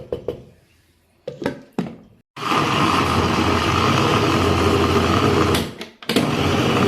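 Electric kitchen grinder (mixer-grinder) grinding pressure-cooked lentils and rice. There are a few knocks as the jar is handled, then the motor runs for about three seconds, stops briefly, and starts again.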